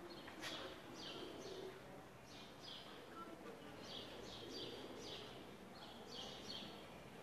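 Small birds chirping again and again, short high chirps often in pairs, faint over a low background murmur.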